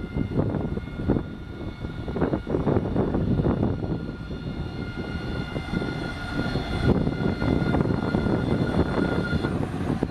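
Electric tram pulling into the platform and slowing: a steady multi-tone electric motor whine over a low rumble of wheels on rail. Most of the whine cuts out near the end as the tram comes to a stop.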